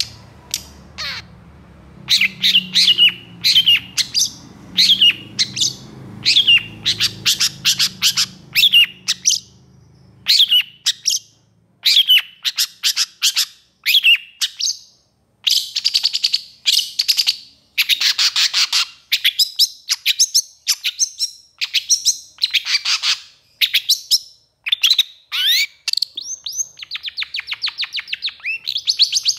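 Caged long-tailed shrike (pentet) calling hard in long, rapid bursts of short, loud notes with brief gaps between bursts. This is the agitated, full-voiced singing that keepers use to provoke other shrikes. A low hum underneath stops about ten seconds in.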